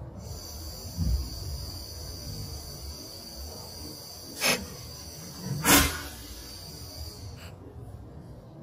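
Homemade plasma gun built around a Bernzomatic propane torch, running with a steady high hiss over a low rumble. There is a low thump about a second in and two sharp pops, the second louder, about four and a half and almost six seconds in. The hiss cuts off about seven and a half seconds in.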